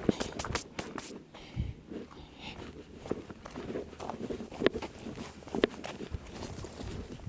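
A hiker's footsteps on a trail while walking downhill: uneven steps and scuffs, a few sharper than the rest.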